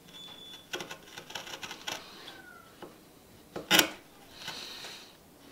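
Sharp bench chisel pushed by hand through wood, paring the waste between dovetail tails: a run of short scraping cuts with a faint squeak of steel on wood, and one louder sharp snap about three and a half seconds in.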